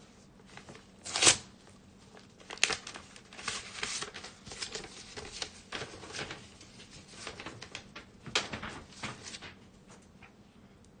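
Trading cards and their plastic holders and packaging being handled: irregular rustles, crinkles and sharp clicks, the loudest about a second in.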